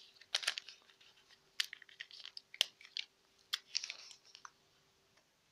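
A small wet-wipe sachet crinkling and crackling in the fingers as it is handled before being torn open, in irregular sharp crackles that stop about four and a half seconds in.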